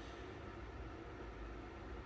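Quiet, steady room tone: a faint even hiss with a low hum underneath and no distinct sounds.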